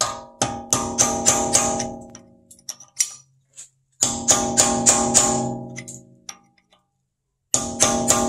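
Rapid hammer blows on a cold chisel driven against the staked collar of a BMW axle nut, in three bursts of about four or five strikes a second, each burst leaving a ringing metallic tone. This is the nut being unstaked, the chisel opening the staked collar away from the axle's groove so the nut can be removed.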